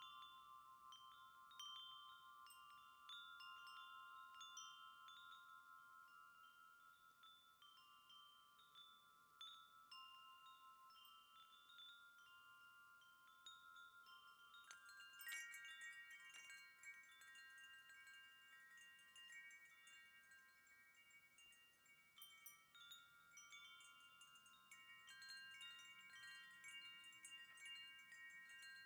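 Wind chime ringing in irregular strikes, each note ringing on and overlapping the next. About halfway through, more chimes sound together, adding new tones and a bright, high tinkling.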